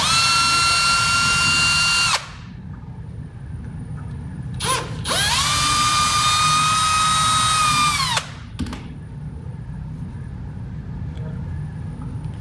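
Cordless drill-driver backing out the buttpad screws in two runs: one of about two seconds, then a short blip and one of about three seconds. Each run spins up quickly to a steady whine and winds down at the end.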